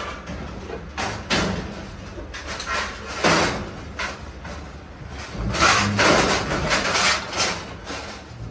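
Galvanized sheet-metal furnace base panels banging and scraping as they are pried and worked loose, a run of sharp clanks with a busier burst of rattling about five to seven seconds in.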